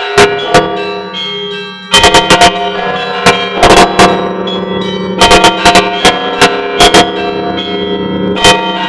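Orthodox church bells ringing a peal: quick, irregular strikes of the small bells over the lingering tones of the larger bells. The ringing thins out for about a second near the start, then comes back in full with a run of rapid strikes.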